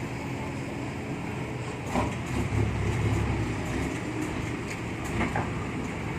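Large diesel truck engine running steadily, with a louder low rumble for a second or so about two seconds in, and a couple of short knocks.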